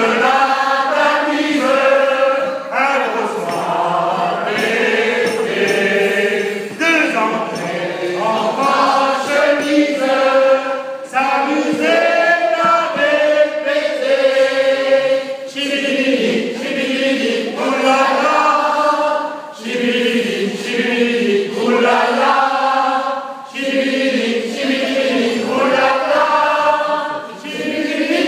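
A group of men singing together in chorus, in sung phrases broken by short breaths every few seconds.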